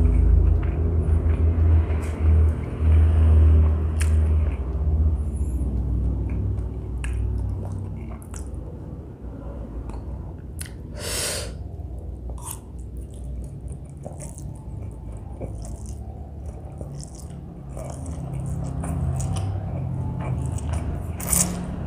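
Close-miked eating sounds: a person chewing a mouthful of noodles, with uneven low mouth rumble and scattered wet clicks and smacks.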